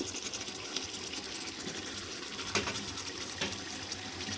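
Chicken in masala sizzling steadily in a pot after frying, with a few light ticks.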